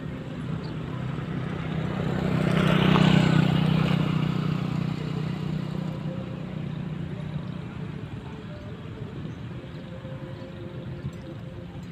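A motorcycle riding past, its engine growing loud about three seconds in and then fading slowly as it rides away.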